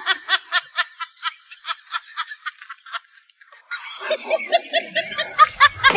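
A person laughing in a quick run of short ha-ha bursts that fades out about three seconds in, then laughing again, fuller, near the end.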